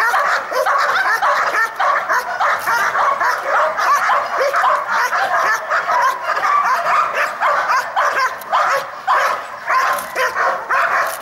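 Young dog barking rapidly and without a break at an agitating decoy in protection training, several high barks a second.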